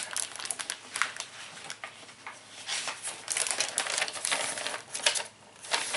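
Clear cellophane gift-basket wrapping crinkling irregularly as it is handled and turned over.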